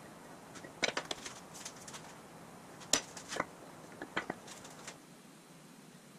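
A scattering of short, sharp clicks and knocks at irregular intervals: a quick cluster about a second in, the loudest about three seconds in, and a pair just after four seconds.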